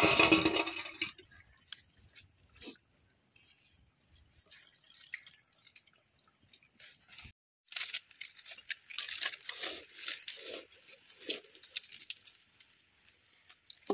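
Deep-fried breadcrumb-coated vegetable fingers tipped off a wire skimmer onto a steel plate with a brief clatter at the start. After a quiet stretch, a run of crisp crunches and crackles as the fried fingers are broken open.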